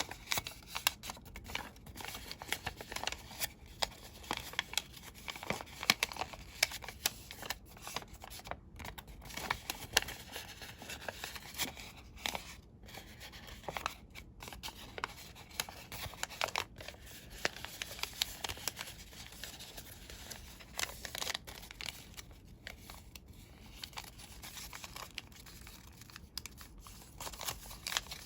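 Colored origami paper rustling and crackling as it is folded and creased by hand, with many sharp little clicks and crinkles that run on without a break.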